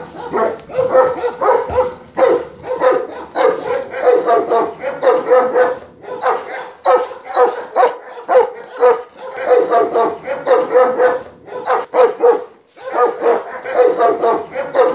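German shepherds barking at a fast pace, in long runs of barks a few a second with brief pauses between runs.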